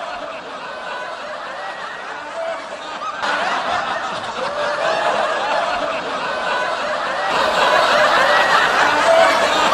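Many people laughing and chuckling together, a comedy laugh track. It gets louder about three seconds in and again near the end.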